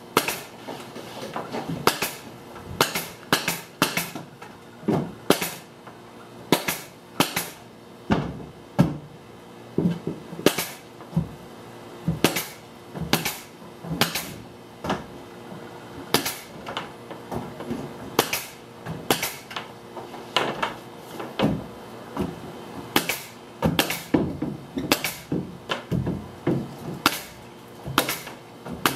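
Power staple gun firing into thin plywood wall skin, fastening the glued panel to the camper's studs: a sharp shot every half second to second or so, in uneven runs with short pauses.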